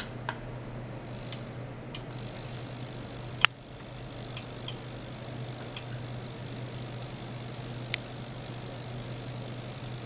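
Ultrasonic oscillation equipment driving a probe in a water tank, heard as a steady high-pitched hiss that switches on about two seconds in, over a constant low electrical hum. A few small clicks, the sharpest about a second and a half after the hiss starts.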